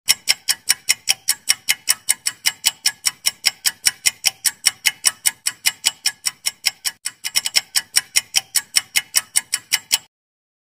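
Clock-ticking sound effect for a quiz countdown timer: fast, even ticks about five a second, stopping suddenly after about ten seconds.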